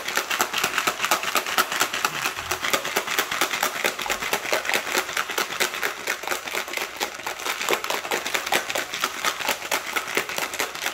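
Ice cubes rattling hard inside a plastic protein shaker bottle as it is shaken to mix whey protein powder with water: a loud, rapid, even clatter of many clacks a second, kept up without a break.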